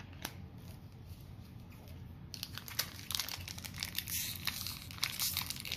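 Foil wrapper of a Pokémon TCG booster pack crinkling as it is torn open by hand, starting about two seconds in after some quiet handling.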